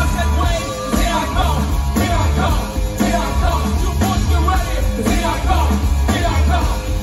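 Live band playing a driving rock-funk groove: drum kit with a heavy bass line and electric guitar, with strong drum hits about once a second.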